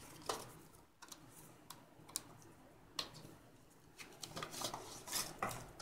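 Cardboard product box handled by hand: faint scattered clicks and scrapes of card, busier in the second half.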